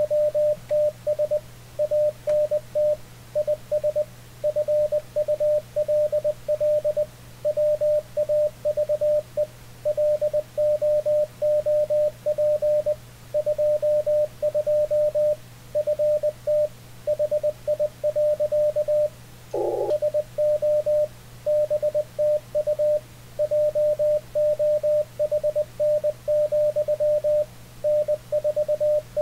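Morse code (CW) from an Icom IC-7300: a single mid-pitched tone keyed on and off in dots and dashes, at about 20 words per minute, over a low steady hum. About two-thirds of the way through, a brief lower, wavering tone cuts across it.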